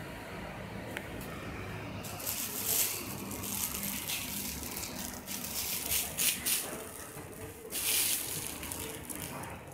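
Clear plastic wrapping crinkling and rustling as plastic-wrapped poles are handled. It comes in irregular surges, the loudest about eight seconds in.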